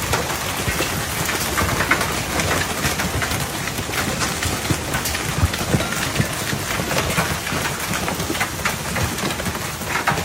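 Hailstorm pelting down: a dense, steady patter mixed with many sharp, irregular hits of hailstones striking hard surfaces.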